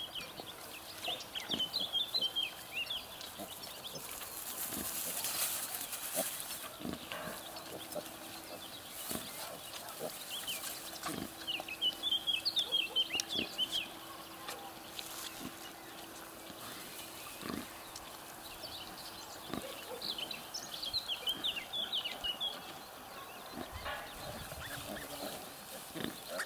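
A sow nursing her two-week-old piglets in straw: soft pig grunts and straw rustling, with three short bursts of high, rapid chirping about ten seconds apart.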